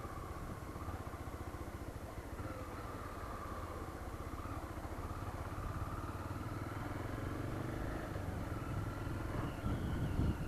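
Honda CB300 motorcycle's single-cylinder engine running steadily while being ridden on the road, with a wavering engine tone that rises a little near the end.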